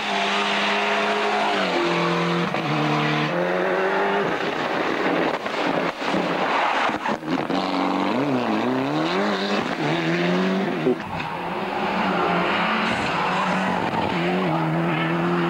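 Ford Escort RS Cosworth Group A rally cars' turbocharged four-cylinder engines at full throttle, revving up and falling back through gear changes, with tyre noise on the stage surface. A single sharp crack comes about eleven seconds in.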